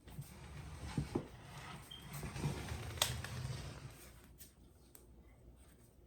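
Hands rubbing and kneading skin and clothing close to the microphone during a massage, with a couple of soft knocks and one sharp click about three seconds in. It dies away after about four seconds.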